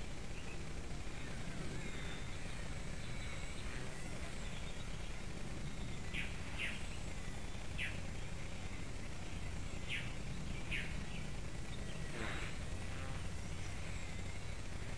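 A bird chirps several times in short, downward-sliding notes from about six seconds in, over a steady low background rumble of outdoor noise.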